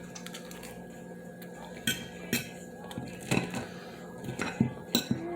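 Cutlery clinking and scraping on a plate while eating, with a handful of sharp clinks in the second half.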